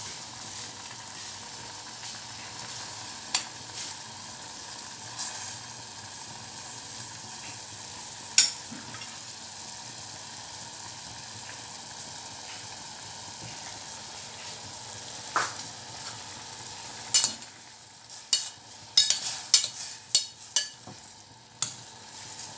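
Vegetables and meatballs simmering in water in a stainless steel pot on a gas burner: a steady hiss broken by an odd click. In the last few seconds a spoon stirs the pot, clinking repeatedly against the stainless steel.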